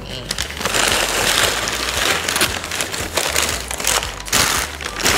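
White packing paper crumpling and rustling as ceramic dishes are unwrapped, with a few sharp knocks near the end.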